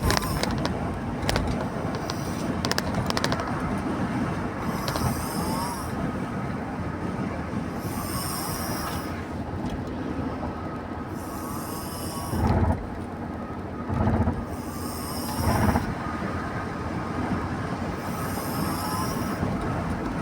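A person snoring in sleep, one breath roughly every three seconds, over a steady traffic rumble. Three louder bursts come a little past the middle.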